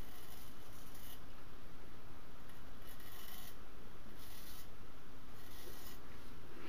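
Straight razor scraping lathered stubble on the neck: four separate rasping strokes, each about half a second to a second long.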